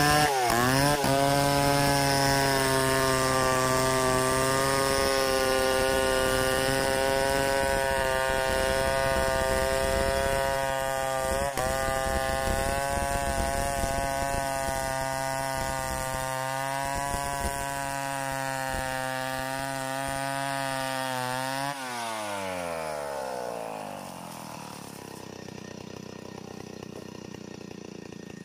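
Stihl 070 two-stroke chainsaw ripping lengthwise through a log at full throttle, its engine note steady under load. About 22 seconds in the throttle is released and the revs fall away to a quieter idle.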